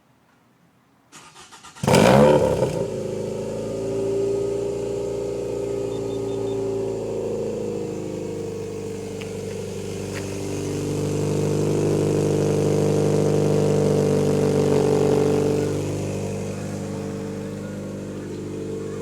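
Scion tC four-cylinder engine cranked on the starter about a second in, catching with a loud flare and settling into idle. The exhaust is leaking badly, through a hole in the aftermarket muffler and burnt-out gaskets. The idle rises and grows louder for a few seconds past the middle, then settles back.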